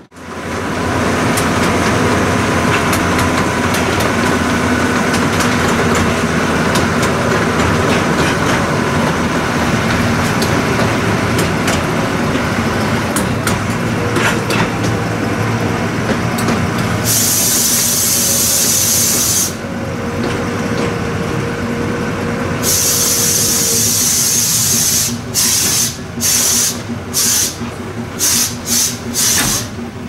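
Akasawa Forest Railway's narrow-gauge train running slowly, heard from an open passenger car: the small locomotive's engine and a steady rolling rumble, with wheels clicking over rail joints. From a little past halfway a loud high hiss comes and goes in long stretches, then breaks into short pulses near the end.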